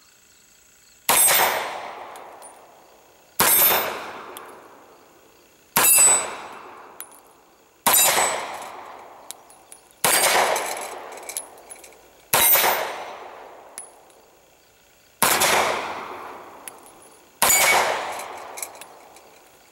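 Benelli B-80 semi-automatic pistol in .30 Luger (7.65 Parabellum) fired eight times in slow single shots, about two seconds apart. Each shot is followed by a metallic ring from the steel plate targets that fades over a second or two.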